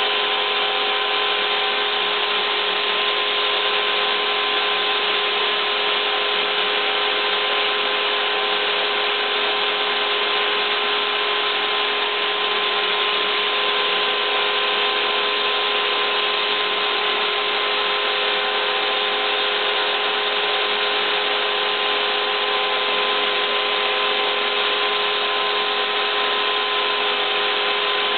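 Homebuilt CNC router running, its spindle motor making a steady whine over a constant mechanical noise. One of the tones drops in pitch near the end.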